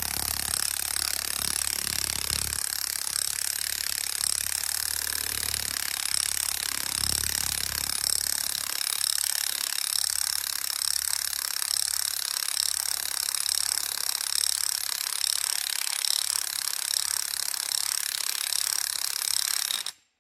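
Cordless drill running steadily with a high-pitched motor whine, turning a long auger bit down into gravelly soil to pre-drill a hole for a ground anchor. It cuts off suddenly at the very end.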